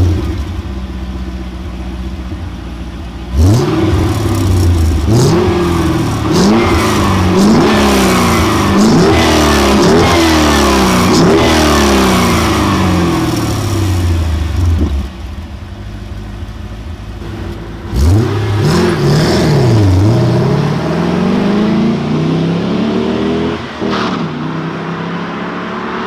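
Holden VT Commodore SS 5.7-litre V8 engine and exhaust idling just after start-up, then revved up and down again and again. It settles back to idle for a few seconds around the middle, is revved repeatedly again, and near the end holds a steadier, slowly rising note.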